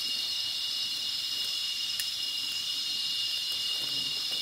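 Steady, high-pitched drone of a tropical forest insect chorus, holding two constant pitches without a break.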